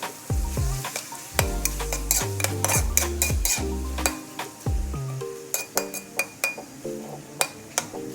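Chopsuey being stir-fried in a pan: a cooking utensil stirring and clinking against the pan in quick, irregular strikes over a sizzle. Background music with low bass notes plays along, fading out after about five seconds.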